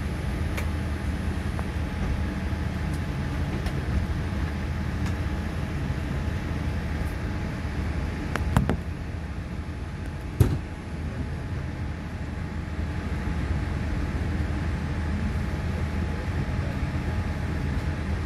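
Steady low rumble of cabin noise inside a Boeing 787-8 Dreamliner as it moves on the ground. About halfway through there are two short thumps, about two seconds apart.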